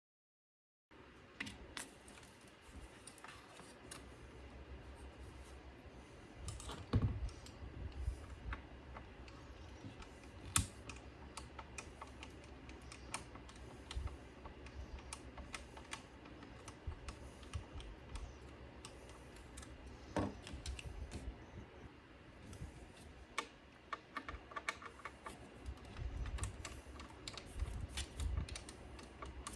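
Irregular small clicks and taps of hands handling parts of a CD receiver during repair, with a few heavier knocks and a busier run of clicking near the end.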